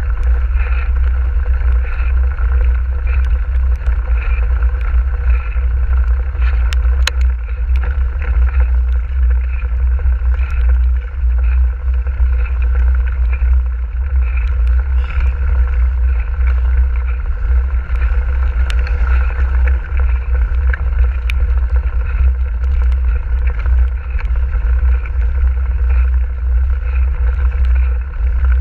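Mountain bike ridden fast over a wet, muddy forest track: a steady heavy low rumble of tyre and wind noise on the action camera's microphone, with a few sharp clicks and knocks from the bike.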